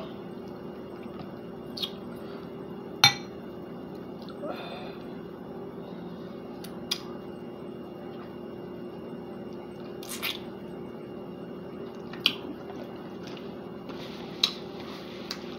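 Wet mouth sounds of someone eating saucy chicken wings: scattered smacks and clicks, the loudest about three seconds in, over a steady low hum. Near the end comes a softer rustle as a napkin wipes her mouth.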